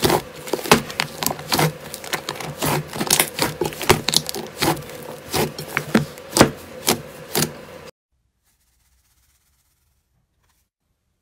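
A large lump of thick slime being kneaded and squeezed by hand in a glass bowl, with rapid, irregular clicks and pops from trapped air. It cuts off suddenly near the end, and near silence follows.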